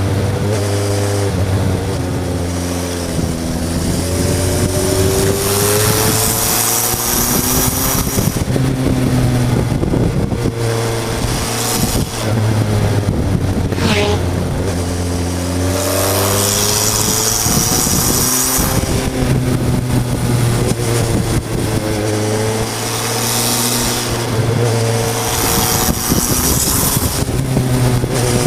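A Suzuki GSF Bandit 1200 S motorcycle's inline-four engine, heard from on the tank while riding. It is repeatedly accelerating and rising in pitch, then dropping back on gear changes and off-throttle for bends. Wind rushes over the microphone in several stretches of higher speed.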